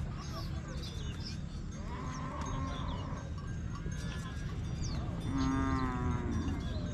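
A herd of long-horned cattle lowing, with one long moo about five seconds in and a fainter one earlier, over a steady low rumble and thin high chirps.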